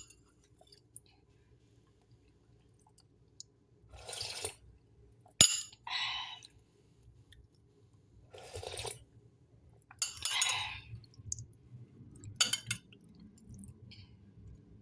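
A person eating soup: a few short sipping and chewing noises spaced a couple of seconds apart, and one sharp clink of a utensil about five seconds in, the loudest sound.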